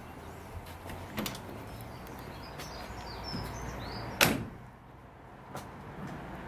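Rear doors of a Mercedes-Benz fire-engine van being unlatched and swung open: metal latch clicks and knocks, with one loud clunk about four seconds in. Faint bird chirps in the background.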